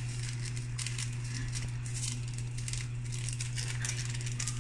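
Chicken simmering in tomato sauce in an aluminium wok, with fast, irregular crackling and popping, over a steady low hum.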